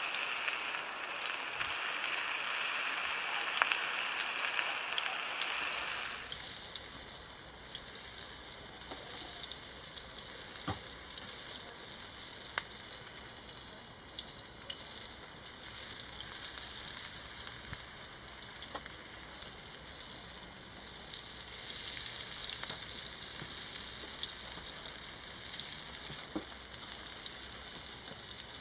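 Food frying and sizzling in a pan over pellet embers: a steady hiss with scattered small crackles, louder for about the first six seconds, then changing suddenly to a softer sizzle.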